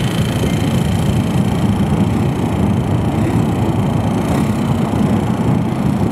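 Airbus A321's twin CFM56 jet engines at takeoff thrust, heard from behind as the airliner rolls away down the runway: a loud, steady roar with a faint high whine in the first couple of seconds.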